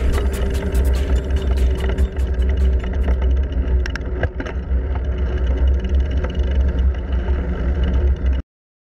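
Wind buffeting the microphone of a handlebar-mounted camera, with the tyre rumble of a bicycle riding on tarmac. A quick run of sharp clicks and rattles comes from the bike over the first few seconds, and the sound cuts off suddenly near the end.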